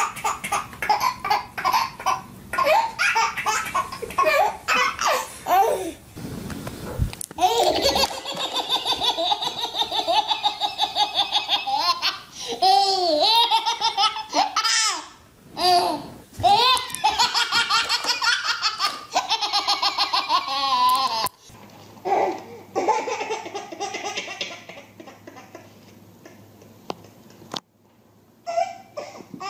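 A baby laughing hard in long runs of belly laughs, with short breaths between; the laughter breaks off abruptly twice and runs on again.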